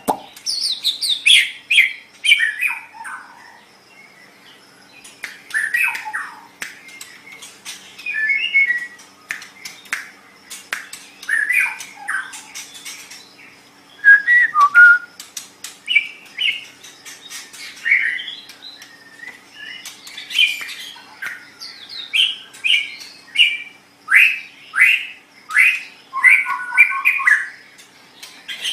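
White-rumped shama (murai batu) singing in separate phrases every couple of seconds: clear whistled notes sliding downward, mixed with sharp clicking and chattering notes.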